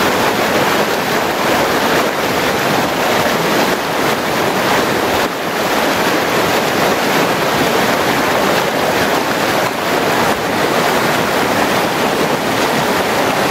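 Whitewater creek rapids rushing steadily over rocks, a loud, even roar of churning water.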